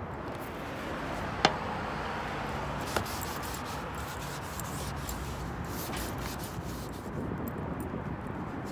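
Hand tools handled on a metal camper roof: two sharp clicks, the louder about a second and a half in, over a steady background hiss.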